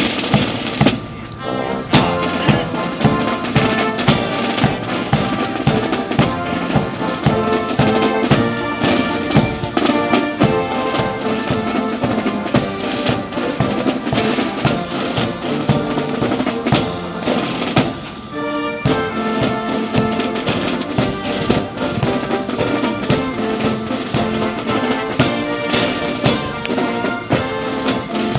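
Military brass band playing a march, brass instruments over snare and bass drums keeping a steady beat.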